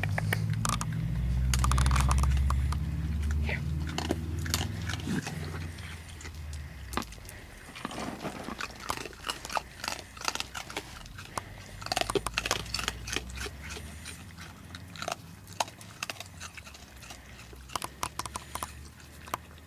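Young raccoons chewing and crunching food, a run of irregular sharp crunches and smacks that thickens after the first few seconds. A low rumble underlies the first five seconds or so.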